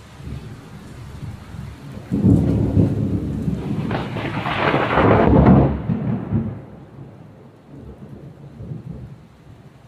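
A thunderclap over steady rain: a sudden low rumble about two seconds in that swells to its loudest around five seconds and dies away over the next two.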